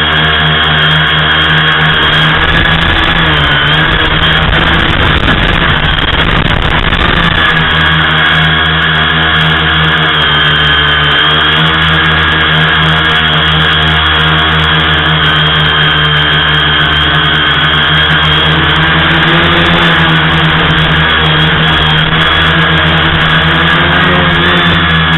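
Tricopter's electric motors and propellers whining steadily from the onboard camera, pitch drifting up and down slightly with throttle. A few seconds in, a rumble of wind buffeting joins it briefly.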